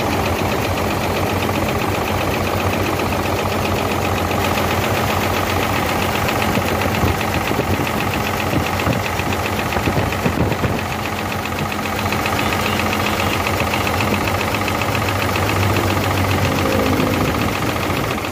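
Hino J08C straight-six diesel engine running with a rhythmic knock, with a few heavier strokes a little past the middle. The knock comes from cylinders one and two; cracking their injector lines makes no difference to the running, the sign that those two cylinders are not firing, and the mechanic takes their pistons for nearly seized.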